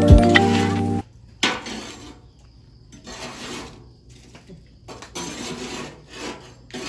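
Background music that cuts off about a second in, followed by several short bursts of metal clatter and scraping from metal baking tins and utensils being handled at a wood-fired oven.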